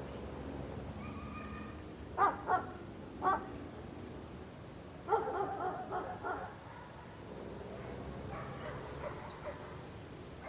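A dog barking three short times, then letting out a quick run of yips and whines, over a faint steady background.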